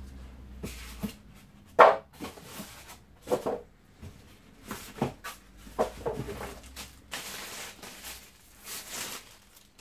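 Vacuum cleaner parts and their plastic packaging being handled during unpacking: a run of short knocks and crinkles, then a longer rustle near the end.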